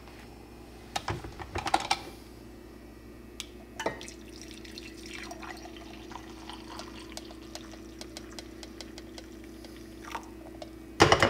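Hot coffee poured from a glass coffeemaker carafe into a ceramic mug, a soft trickle over a steady low hum. Sharp clinks of the mug and carafe come about a second in and near four seconds, and a loud clatter comes just before the end.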